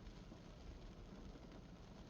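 Faint, steady hiss and patter of light spring rain on a car, heard from inside the car.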